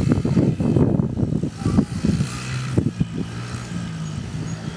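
Small dirt bike engines running as they are ridden. The sound is rough and louder for the first two seconds, then settles into a quieter, steady hum.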